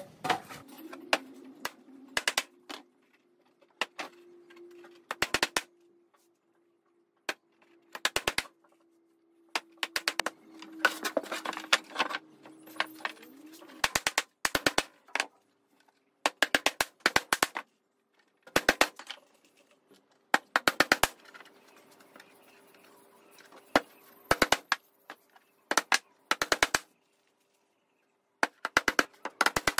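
Claw hammer driving nails through a plywood panel into a timber frame: short runs of quick blows, repeated again and again with pauses between.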